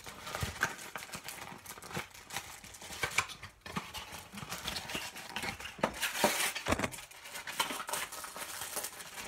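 A cardboard trading-card box being opened and its cellophane-wrapped brick of packs pulled out: irregular rustling and crinkling of paperboard and plastic wrap, with many small clicks and taps.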